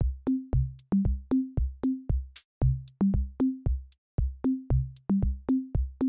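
Background electronic music: a steady drum-machine beat with bass notes.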